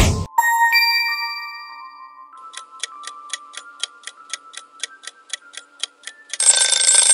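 Quiz sound effects: a whoosh, then a chime, then a clock-style countdown ticking about four times a second over a faint tone that steps upward. About six seconds in, a short, loud, bright time-up sound ends the countdown.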